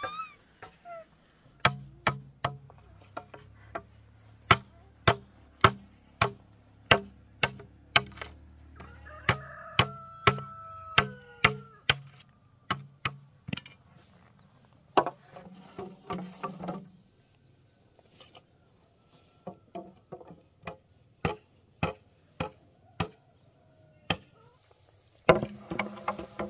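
Repeated sharp strikes of a tool on wood or bamboo, about two a second, in several runs with short pauses between them. A bird calls briefly about ten seconds in.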